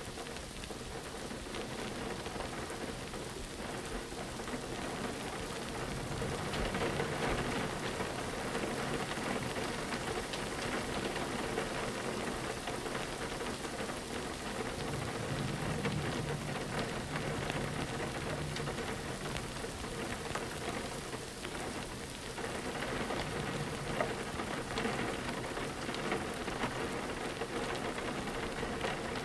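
Steady rain falling on a window, with many small scattered ticks of drops and a low rumble that swells about six seconds in and again around fifteen seconds in.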